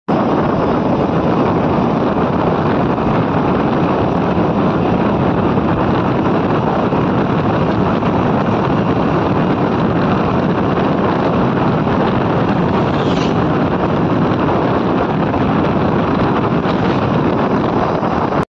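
Steady, loud wind rush buffeting the microphone of a camera moving along a road, with the running noise of the vehicle carrying it underneath.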